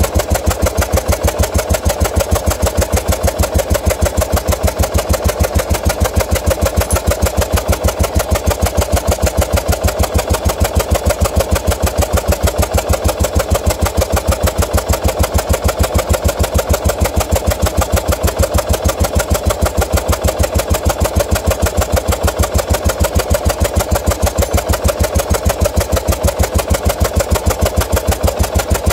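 1981 Yamaha XV750 Virago's air-cooled V-twin idling on one cylinder, the other spark plug pulled, with a steady, even beat. Its carburetor's idle air-fuel mixture screw is being set to cure popping on deceleration.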